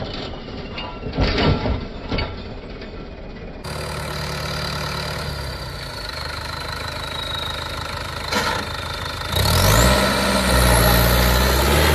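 A tractor's diesel engine: for the first few seconds it is worked hard with its rear tyres churning through loose soil, then it idles steadily until, near the end, it is revved up and runs louder.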